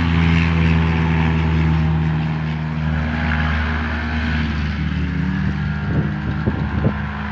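Small ultralight aircraft's piston engine running steadily as it moves across the grass field, with a few short low thumps near the end.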